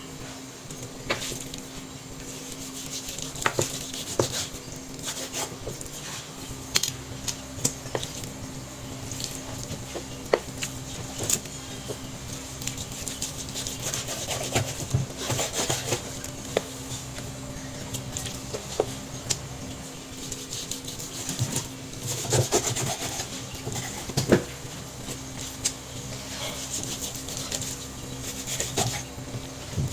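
Food preparation on a wooden cutting board: a knife and utensils scraping and knocking at irregular intervals, over a steady low hum.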